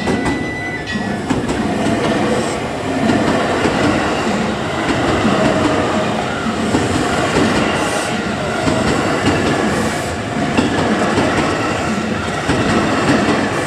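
JR Hanwa Line electric train running past over a level crossing: a loud, steady rumble of wheels on rail.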